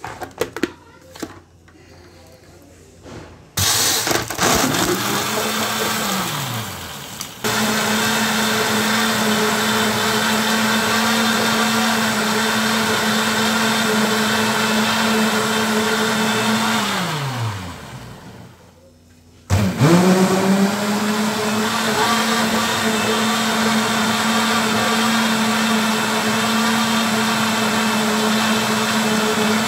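Countertop jug blender blending a chocolate ice cream milkshake. A few clicks come as the lid is fitted, then the motor starts with a steady whir. It falls in pitch and stops twice, once briefly a few seconds in and once about two-thirds through, then starts again sharply and runs steadily.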